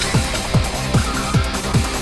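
Electronic background music with a steady, fast kick-drum beat, about two and a half beats a second.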